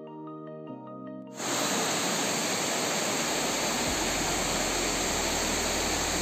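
Background music with mallet-like notes for the first second or so, then a sudden cut to the steady rush of a waterfall, water pouring down loud and even.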